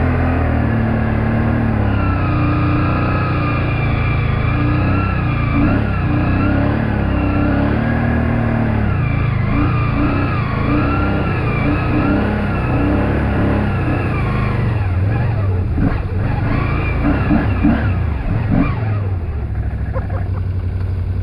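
ATV engine revving hard, its pitch rising and falling over and over as the throttle is worked, typical of a quad being driven through deep mud. Near the end the engine drops back to a lower, quieter running.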